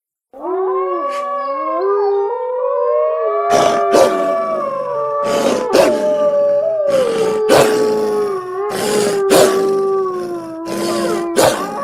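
Several wolves howling together, long overlapping howls that slide slowly in pitch. From about three and a half seconds in, short sharp calls break in repeatedly over the howling.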